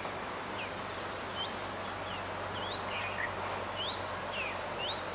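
Outdoor jungle ambience: a bird chirping in short rising whistled notes about every half second, over a steady high insect drone and a soft background hiss.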